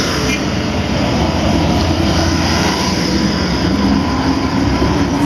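A water spray hissing steadily over a muddy toy cement mixer truck, with a low motor hum under it. It cuts off abruptly at the end.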